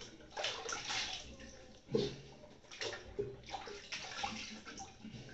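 Water splashing in uneven handfuls as a man rinses his face over a bathroom sink after shaving, with one louder splash about two seconds in.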